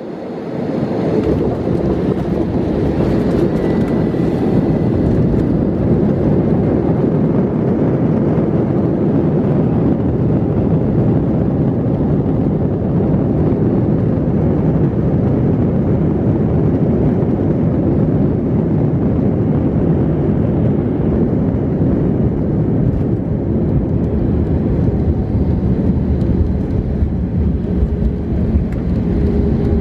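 Airbus A321 landing, heard from inside the cabin: a loud, steady rumble of the engines and the run along the runway, which comes up suddenly in the first second. Near the end a low steady hum of engine tones comes through the rumble.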